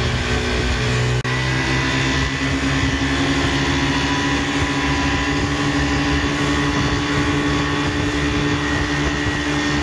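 Twin Chinese 40 hp outboard motors running steadily at speed, pushing the boat along with wind and spray rushing past, and a brief break in the sound just over a second in.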